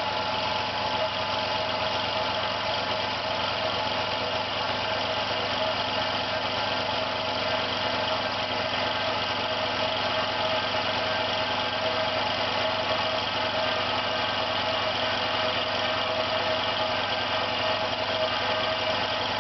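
A failing electric air compressor running steadily as it builds pressure, a constant hum with fixed tones; it is making a strange noise, typical of the compressor failing.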